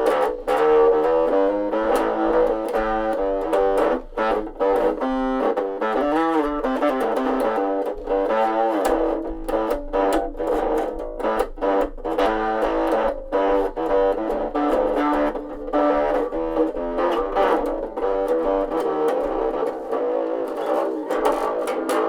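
Electric bass played through a small battery-powered Line 6 amp: a continuous run of plucked notes with a thin, small-speaker tone and little deep low end, since the tiny amp doesn't really do the bass.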